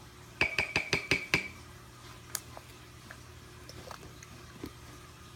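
A quick run of about six sharp, ringing clicks within a second, followed by two single clicks spaced a couple of seconds apart.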